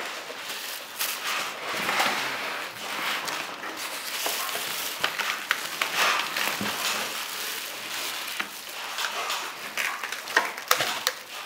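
Plastic wrapping crinkling and rustling as it is handled and pulled about, with scattered light clicks and knocks.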